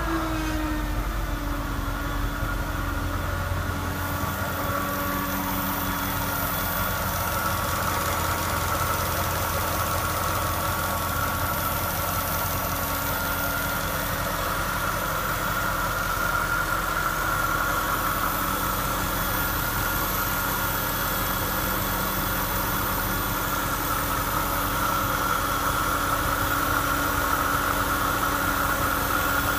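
XJR's engine settling to idle, its pitch falling in the first second or so, then running steadily with a whirring whine over it. This whirring noise is the fault being recorded.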